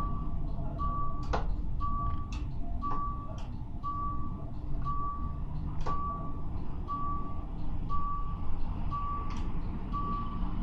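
An electronic warning beeper sounding a steady series of single-pitched beeps, about one every three-quarters of a second, that stops near the end. Underneath there is a continuous low vehicle rumble and a few sharp clicks.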